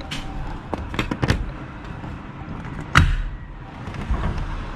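Several light clicks and knocks, then one louder thump about three seconds in, followed by a low rumble.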